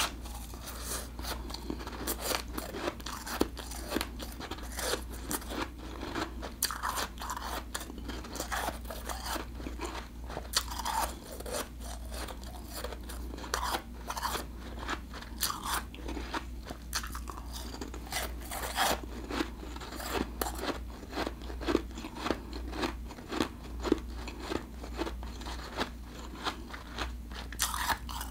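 Person biting and chewing refrozen blended ice: a dense run of crisp crunches, one after another.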